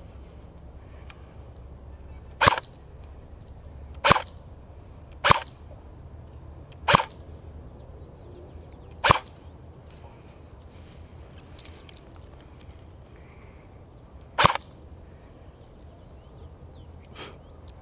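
Airsoft gun firing single shots: six sharp cracks at uneven intervals, then a fainter one near the end.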